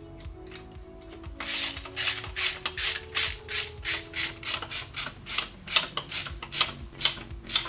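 Hand ratchet clicking in quick, even strokes, about three or four a second, starting a second or so in, as it runs down the 10 mm bolts holding an LSA supercharger to the engine. Faint background music underneath.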